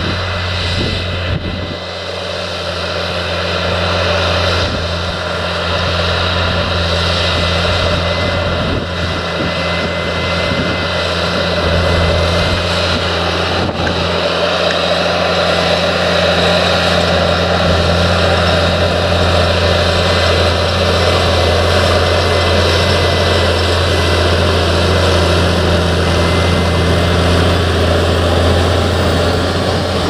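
Fendt 936 Vario tractor's six-cylinder diesel engine working under load as it pulls a 9-furrow Lemken plough through the soil: a steady, deep drone with a higher steady tone above it. It grows louder over the first few seconds as the tractor comes close, then holds steady.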